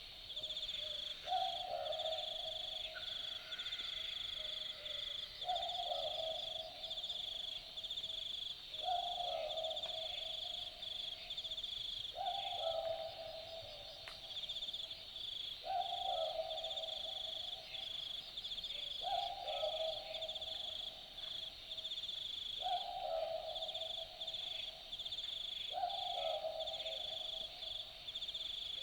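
Australian Boobook (mopoke) giving its typical two-note 'boo-book' hoot, eight times at an even pace of about one call every three seconds. A steady high trill runs underneath throughout.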